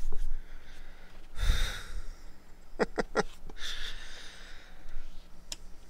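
A man breathing close to the microphone: a heavy breath out about a second and a half in, then a softer breath or sniff about four seconds in, with a few small clicks between them.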